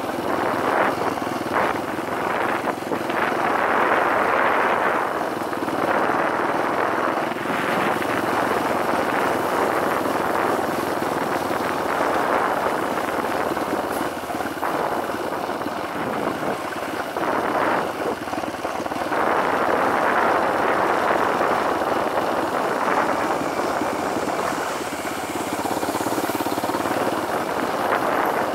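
Dirt bike engine running while the bike rides along, its sound rising and falling every few seconds with the throttle.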